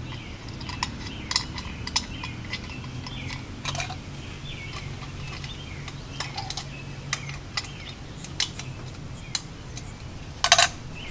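Scattered small metallic clicks and taps of hand work on an electrical outlet and its metal box, with a knife used as a screwdriver on the terminal screws; a louder rattle about ten and a half seconds in.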